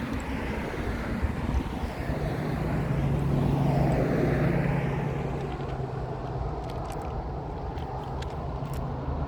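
A motor vehicle passing: a steady low engine hum and road noise swell to their loudest about four seconds in, then fade back to a steady low hum.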